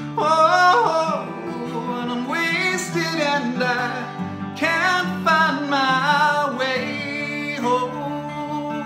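A man singing long, sliding notes over a 1974 Guild F412 twelve-string acoustic guitar in drop D tuning. The voice drops out about a second before the end while the guitar keeps ringing.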